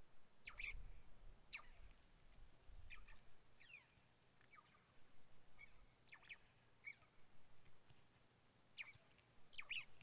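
Faint, short bird calls: about ten quick, high chirps and down-slurred notes scattered through, with a low rumble under the first few seconds.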